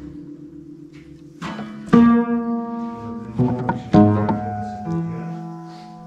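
Keys struck on a derelict grand piano: a few notes and small chords about two seconds in, again at about three and a half and four seconds, and once more near five, each ringing on and fading.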